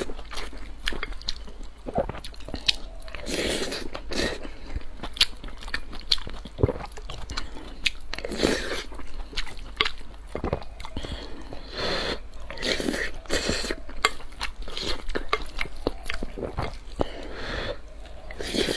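Close-up eating sounds: chewing mouthfuls of a soft noodle and rice dish, with many short, sharp clicks of a wooden spoon against a glass bowl.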